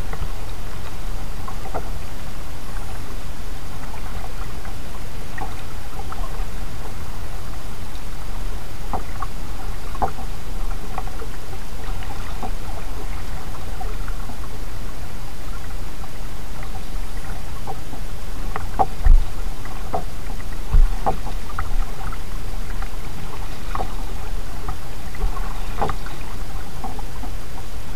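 Kayak paddling: soft splashes and drips from the paddle blades every second or two over a steady hiss and low rumble. Two low thumps land a couple of seconds apart past the middle.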